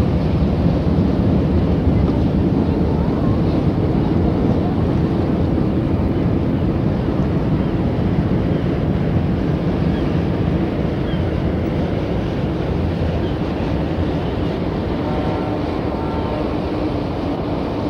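Harbour ambience: a steady low rumble of lapping water and boat engine noise, with faint gull calls now and then. About fifteen seconds in, a steady pitched siren tone starts sounding.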